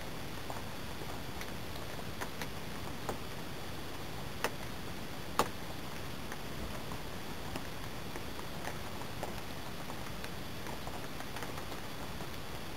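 Mora knife whittling a strip of wood: scattered small cutting clicks over a steady hiss, with two sharper clicks about four and a half and five and a half seconds in.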